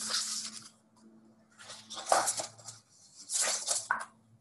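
Picture book being handled and its pages turned: three bursts of paper rustling and sliding, with a sharp tap about two seconds in.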